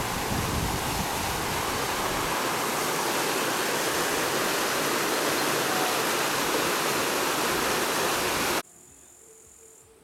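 Stream of water rushing and splashing over stones in a small rapid, a loud steady rush that cuts off abruptly about eight and a half seconds in.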